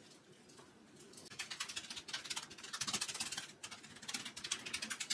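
Spatula spreading a wet spinach-and-herb batter over a parchment-lined baking tray: quick scraping and scratching strokes, starting about a second in.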